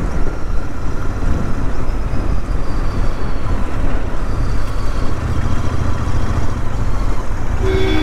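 Royal Enfield Interceptor 650's parallel-twin engine running steadily at cruising speed, mixed with heavy wind rumble on the camera microphone.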